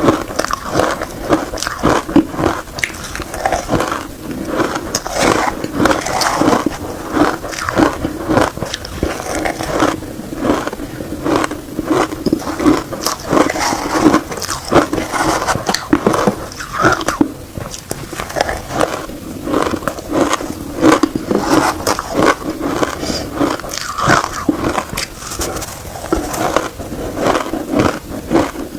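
Close-miked biting and chewing of shaved ice: a dense, irregular run of crunches with some scraping.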